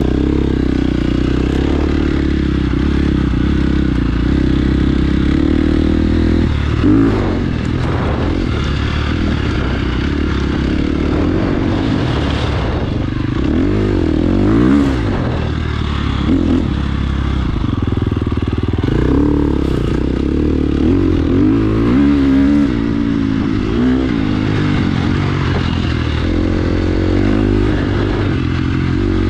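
2017 KTM 350 XC-F's four-stroke single-cylinder engine running under way, its revs rising and falling again and again with the throttle.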